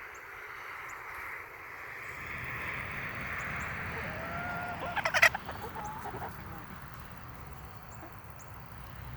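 Hens clucking as they peck over scraps, with a short, loud squawk about five seconds in.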